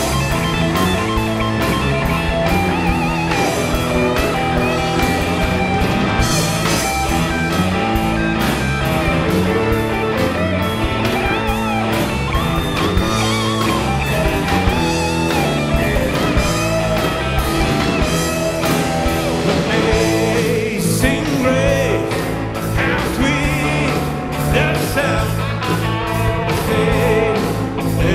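Rock music: guitar over a moving bass line and a steady beat, with a singing voice.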